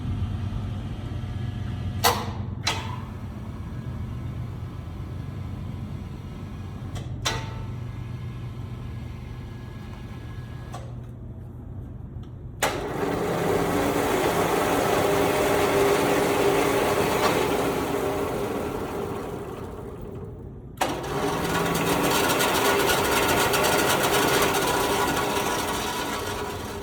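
P&H welding positioner's electric drive running under power: a low hum with a few sharp clicks, then the motor and gearing start suddenly and run loudly for about eight seconds, stop briefly, and run again for about five seconds.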